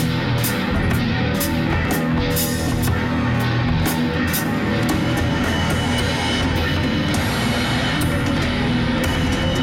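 Rock band playing: electric guitar over a drum kit, with cymbals struck about twice a second for the first few seconds and again near the end.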